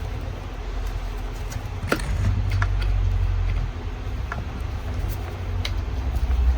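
Car engine running with a steady low rumble that swells briefly about two seconds in, with a few light clicks over it.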